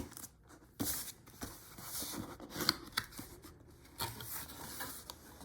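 Product packaging rustling and scraping in several short bursts as the doorbell is handled out of its box, with a sharp click at the very start.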